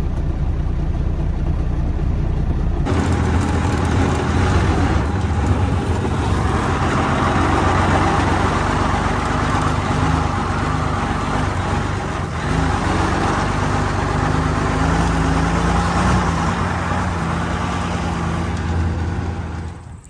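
A vehicle engine running steadily with road noise as it drives, a low drone under a broad rush of noise. The sound changes abruptly about three seconds in.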